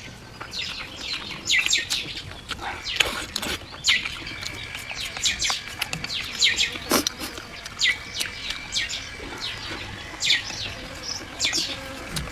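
Small birds chirping in repeated quick runs of short, high notes, over a person chewing a mouthful of food.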